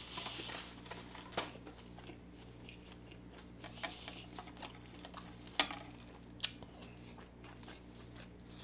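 Close-miked chewing and biting on crispy fried chicken, soft and wet, with a few sharp crunches: one about a second and a half in and two more a little past the middle. A steady low hum sits underneath.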